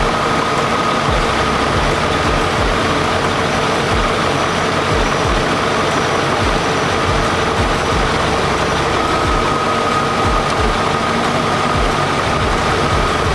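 BMW E39 M5 idling while its newly fitted electric auxiliary fan runs at speed in front of the radiator, a steady rush of air over the engine's idle with a faint thin whine. The new fan running on power is the sign that the failed auxiliary fan fault is fixed.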